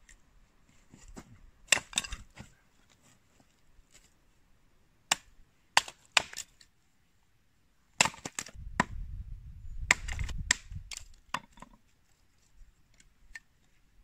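Hatchet splitting kindling on a wooden chopping block: a series of sharp, irregularly spaced chops, with a short pause near the middle.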